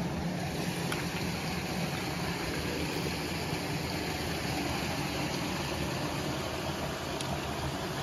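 Shallow mountain brook running over rocks: a steady, even rush of water close by.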